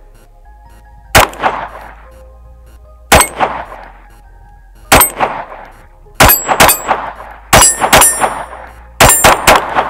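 Walther P22 .22 pistol fired in a string of about nine shots, the first three about two seconds apart and then quicker pairs and triples, each shot followed by the ringing clang of a steel plate target being hit.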